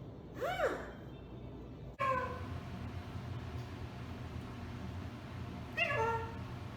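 Blue-fronted Amazon parrot calling: three short pitched calls, the first rising then falling, then two falling ones about two seconds in and near the end.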